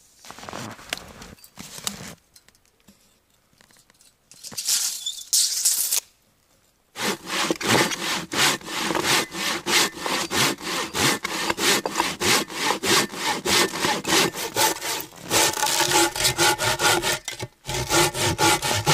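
A Samurai-brand hand saw cutting through a log in quick, regular strokes, about three a second, starting about seven seconds in and pausing briefly near the end. Before that there is quieter scraping and a short burst of rasping about five seconds in.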